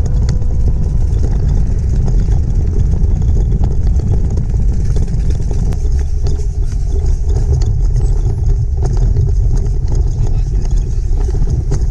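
Steady low rumble of wind on the microphone and a pram rolling at running pace over an asphalt path, with scattered light clicks and rattles.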